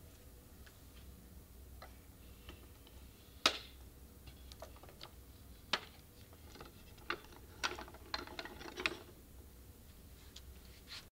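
Wooden kamishibai-style picture-theatre case being handled and its hinged doors closed by hand: scattered light wooden clicks and knocks, the sharpest about three and a half seconds in, then a cluster between about seven and nine seconds.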